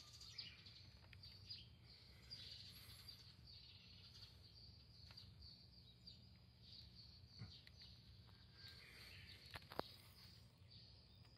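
Near silence: faint outdoor ambience with distant birds chirping now and then, and a couple of small clicks.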